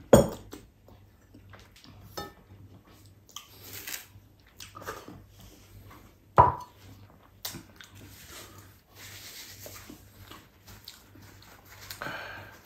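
Eating sounds: chewing and licking fingers, with two sharp knocks of tableware on a table, one at the start and one about six seconds in. A paper napkin rustles near the end.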